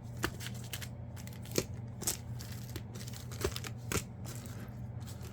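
Foil trading-card booster packs being handled and sorted: a few scattered crinkles and light taps as the packs are moved and set down, over a low steady hum.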